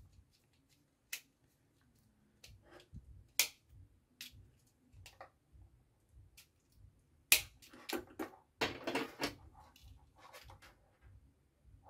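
Screwdriver working the screw terminals of a plastic relay socket, with the socket and its wires being handled: scattered small clicks and scrapes. There is a sharper click about three seconds in, and a louder click followed by a run of scraping and rattling from about seven to nine seconds in.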